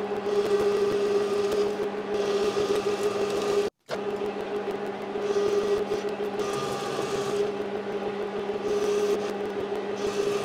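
Metal lathe turning down a steel bar: a steady motor whine under the hiss of the cutting tool, which swells and fades as the cut goes on. The sound drops out for a moment just before four seconds in.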